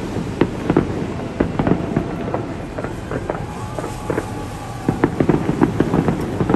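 Fireworks exploding in a rapid, irregular series of bangs, several a second.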